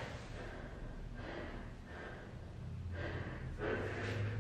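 A man breathing hard and fast, out of breath from burpees, with about one loud gasping breath a second.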